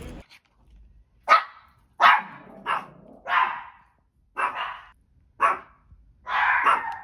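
A small dog barking seven times with uneven gaps; the last bark is drawn out.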